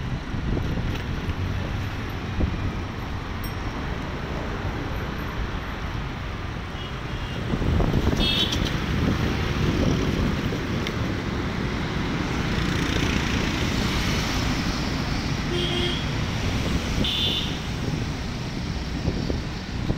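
Street traffic and road noise heard while moving along a road, with wind rumbling on the microphone. It gets louder about eight seconds in, and a few brief high-pitched tones sound later on.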